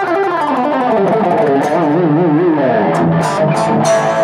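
Ibanez electric guitar on its bridge humbucker, picked with a worn-in, beveled Dunlop Flow Gloss pick: a fast descending run, a lower note held with wide vibrato about halfway through, then a few sharply picked notes with bright pick attack, ending on a sustained higher note. The run shows off the pick's attack and how much pick chirp it gives.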